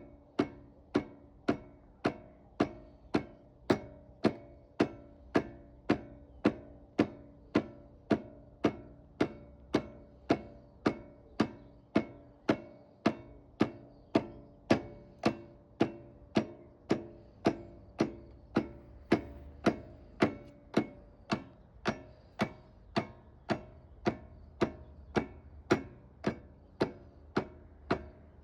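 Electric starter solenoid on a Stiga Combi lawnmower clicking over and over, about two sharp clicks a second, while the engine does not turn over. The owner is unsure of the cause: a dead battery, a bad starter motor, or a fault in the gearing between starter and engine.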